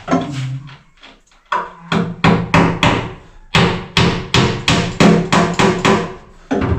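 Hammer blows in a steady run of about three strikes a second, each with a short ring, after a pause of about a second near the start. The hammering is part of fitting kitchen cabinets.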